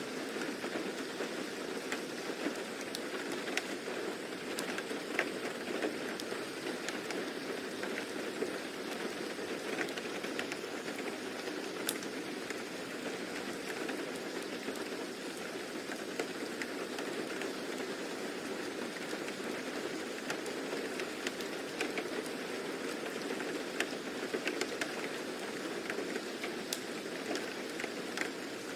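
Steady rain ambience: an even hiss of rainfall with scattered sharp ticks of drops landing.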